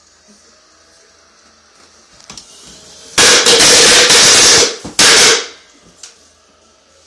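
A string of firecrackers going off in a small room: a rapid, dense run of bangs for about a second and a half, a brief break, then a final half-second burst, loud enough to overload the recording.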